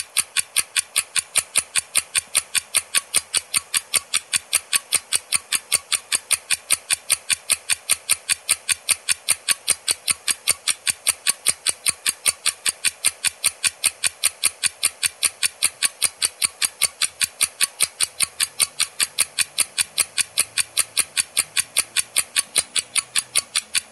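Quiz countdown-timer sound effect: a clock ticking evenly, about four ticks a second, while the answer time runs.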